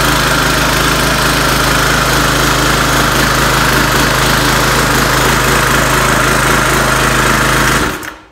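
Harbor Freight Predator 173cc OHV vertical-shaft gas engine running steadily at full throttle, its throttle clipped open, on a hydraulic log splitter. Near the end it cuts off abruptly as the brake wire is let go.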